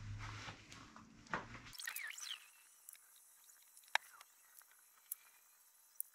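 Faint handling of a tube of Permatex Ultra Black gasket maker and its nozzle: a low hum that cuts off abruptly near two seconds in, a short squeak, then a few sharp small clicks, the loudest about four seconds in.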